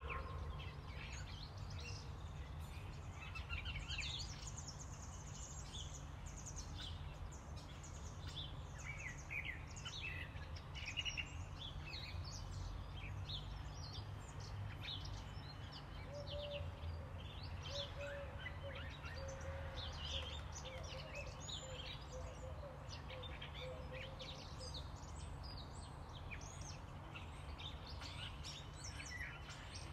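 Small birds chirping over and over, many short calls, over a steady low background rumble.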